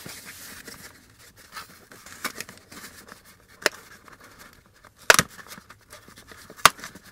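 Hands opening the taped end of a cardboard parts box: a quiet rustle of cardboard and tape, broken by three short, sharp snaps.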